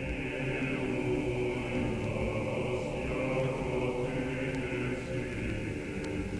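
A choir singing church chant in slow, long-held chords.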